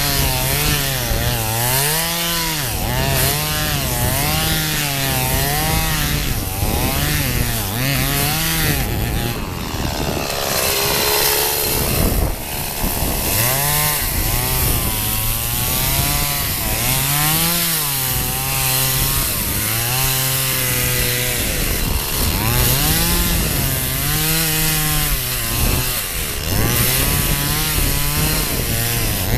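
Chainsaw cutting through thick ice, its engine speed rising and falling over and over as the bar is worked down through the cut.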